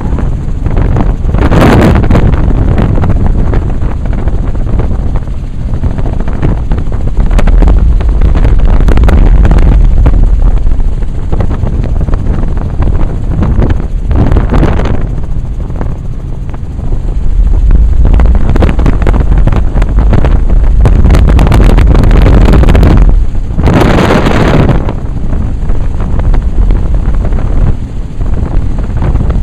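Helicopter engine and rotor noise as heard on board: a loud, steady rumble with heavy wind noise on the microphone and three louder gusts.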